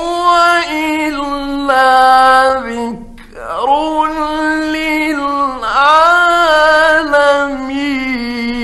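A male reciter chanting the Quran in the ornamented mujawwad style. He holds long melodic notes with slow bends and turns, in two drawn-out phrases with a short breath about three seconds in.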